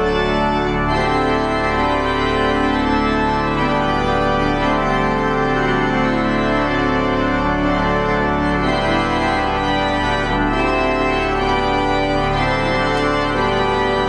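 Pipe organ playing a slow passage of sustained chords, the notes held and changing every second or two.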